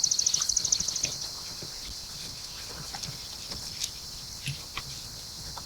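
A songbird's rapid, dry, high-pitched trill, ending about a second in. It is followed by scattered faint clicks and knocks.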